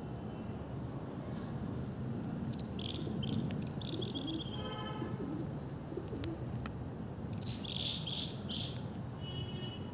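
Outdoor ambience of small birds chirping in scattered short calls, with one falling trill midway and a quick run of louder chirps near the end, over a steady low background hum.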